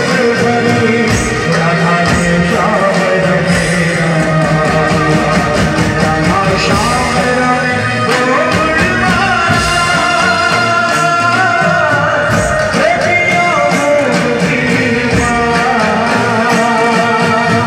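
Live band performing a Gujarati dandiya folk song: vocals sung into a microphone over a steady drum beat and melody instruments.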